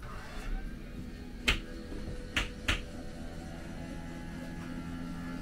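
Electric engine-hatch lift on a boat running with a steady hum that grows stronger in the second half as the hatch rises over the motors. Three sharp clicks come between about a second and a half and three seconds in.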